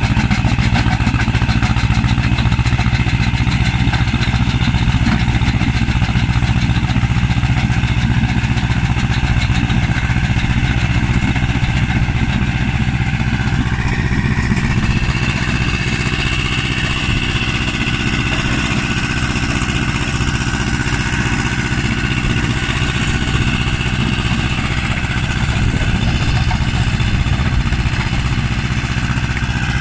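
Tractor-driven stone crusher at work clearing a stony field: a steady engine under load with the machine's continuous grinding clatter. About halfway through, the higher sounds of the machinery shift in pitch.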